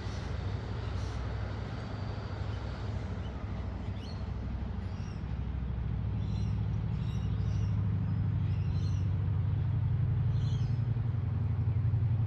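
Diesel engine of the heritage 620/720 class railmotor set 621/721 working as the railcar pulls away, a low rumble that grows louder over the second half.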